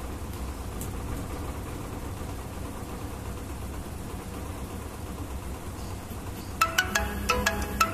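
Steady low hum and rumble of an aquarium filter running. Near the end, light background music of struck, bell-like notes comes in over it.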